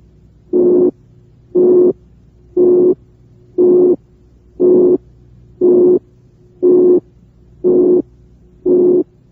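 Synthesised heart murmur: a narrow band of filtered white noise centred near 360 cycles per second, with a pure 360-cycle tone laid over it. It pulses about once a second, and the added tone gives the murmur a musical timbre.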